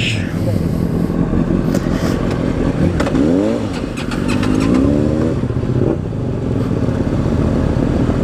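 Sport motorcycle engine heard from on the bike, running steadily and then pulling away, its revs rising sharply about three seconds in and again, more slowly, about four and a half seconds in.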